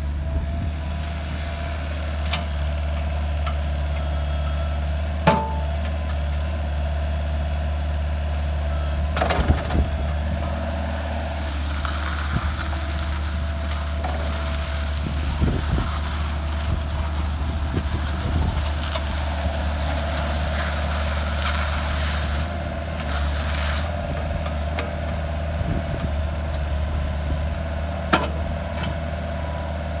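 Terex TC37 mini excavator's diesel engine running steadily while the machine swings and works its arm, with a few sharp metallic clanks, about five, nine and twenty-eight seconds in.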